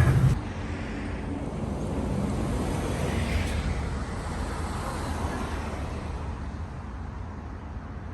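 Outdoor background noise with a steady low rumble, traffic-like. A louder low hum cuts off abruptly just after the start.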